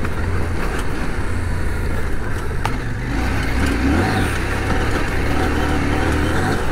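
CF Moto 800MT Touring's 799 cc parallel-twin engine running steadily at low speed as the motorcycle rides over a rocky, rough dirt track, with ground and wind noise, and one sharp click a little over two and a half seconds in.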